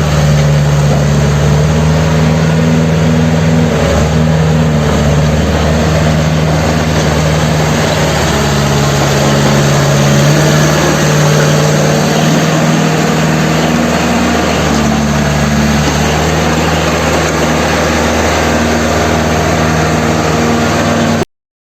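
Caterpillar D3C bulldozer's diesel engine running steadily, its engine speed shifting slightly a few times; the sound cuts off suddenly near the end.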